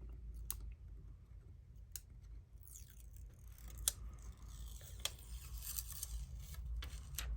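Thin plastic protective film being peeled off a replacement phone screen: soft crinkling and rustling with a few sharp plastic clicks, over a low steady hum.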